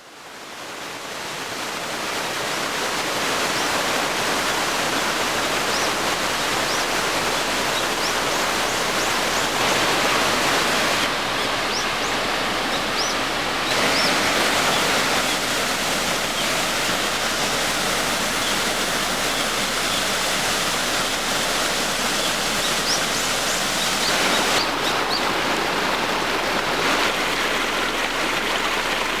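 Akiu Great Falls, a large waterfall, heard close up from its plunge pool: a steady, heavy rush of falling water. It fades in over the first few seconds.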